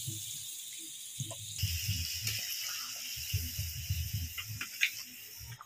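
Water poured into a hot pan of fried chicken and potatoes, hissing and sizzling as it hits the hot curry. Near the end a few short scrapes of a spatula stirring in the pan.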